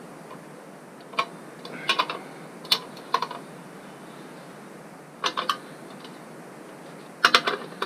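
Sharp metallic clicks and clinks in short, irregular clusters as the mudguard bolts are spun in and tightened into rivnuts.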